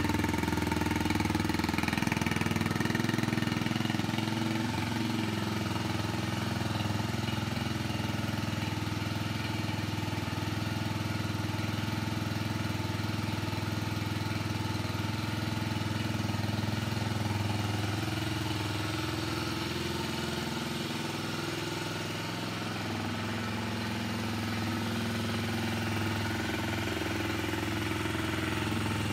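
2002 Kawasaki KL250 Super Sherpa's air-cooled single-cylinder engine idling steadily just after a cold start, with the choke on.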